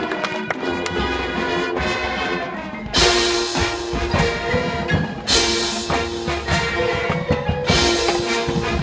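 High school marching band playing: held wind chords, then about three seconds in the full band comes in loud with brass and a cymbal crash. Two more loud accented entrances with cymbal crashes follow, about five and eight seconds in, over drums.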